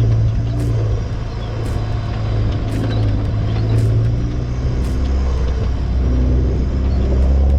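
Four-wheel-drive vehicle driving: a steady engine and road drone that drops lower in pitch about five seconds in.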